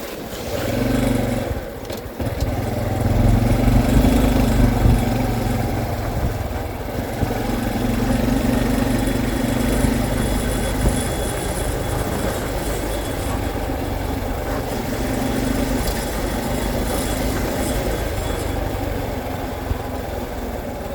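Motorcycle engine running under way, its note rising and easing in stretches, over a steady rush of noise.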